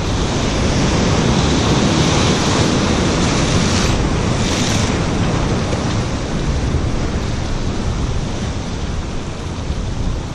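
Ocean surf churning and breaking around concrete pier pilings, with wind buffeting the microphone. The rush swells over the first few seconds and eases after about five seconds.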